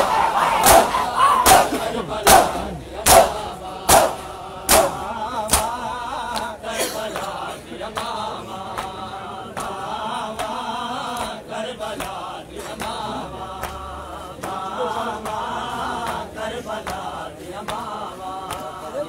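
Crowd of men chanting a nauha lament in unison while beating their chests in time. For about the first five seconds the slaps land together, loud, a little more than one a second. After that the beats are softer under the steady group chanting.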